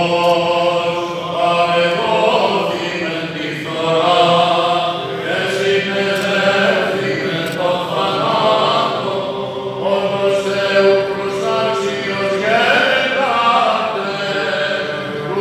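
Greek Orthodox Byzantine chant: a male voice chanting in long melodic phrases with held notes.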